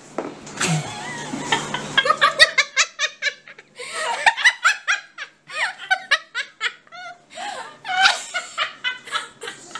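Hearty laughter, coming in several fits of quick repeated ha-ha pulses with short breaks between them.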